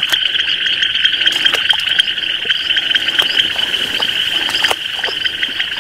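A dense chorus of many small frogs calling together, a steady high trill throughout, with a few scattered short clicks.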